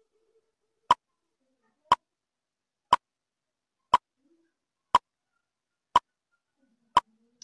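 Countdown timer sound effect: a short, sharp tick once a second, about eight times, with near silence between.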